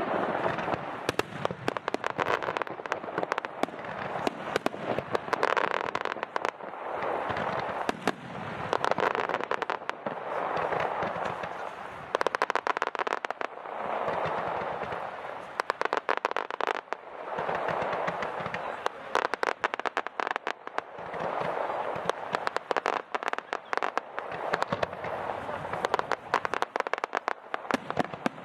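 Fireworks display: a dense, unbroken run of crackling and popping shell bursts, swelling and fading every couple of seconds.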